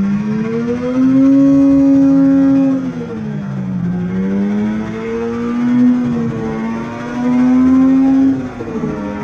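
Arctic Cat snowmobile engine running under throttle, its pitch rising and holding, sagging about three seconds in, then climbing and holding again before dropping off near the end.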